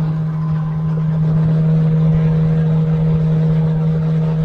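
A small river boat's outboard motor running at a steady speed, a constant drone, with water rushing and spraying along the hull.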